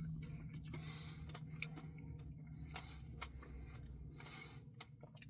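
Faint, scattered small clicks and soft rustling noises.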